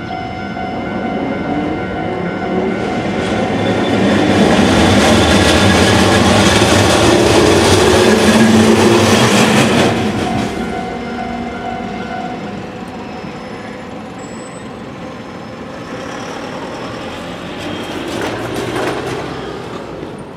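A Japanese level-crossing alarm rings steadily while a Hankai Tramway streetcar rolls over the crossing. The rumble and clatter of the wheels build up and are loudest in the middle, then die away, and the crossing bell stops a couple of seconds later. A smaller swell of noise follows near the end.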